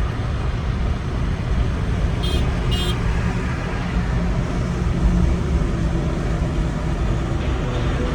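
Steady road and engine rumble of a moving car on the highway, with two short high-pitched beeps about two and a half seconds in.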